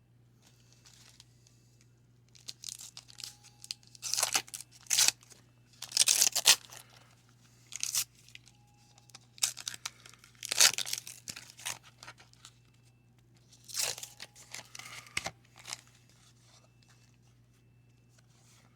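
Wax-paper wrapper of a 1990 Donruss baseball card pack being torn open and crinkled by hand: a run of short rips and crackles, several seconds apart.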